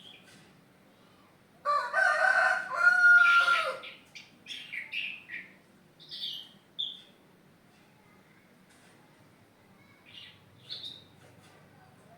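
A rooster crows once, a drawn-out call of about two seconds near the start. Short, high bird chirps follow in quick runs and come again briefly near the end.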